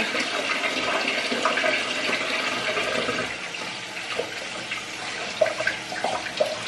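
Water running steadily from a kitchen tap into a sink, with a few light clinks of dishes about two-thirds of the way through.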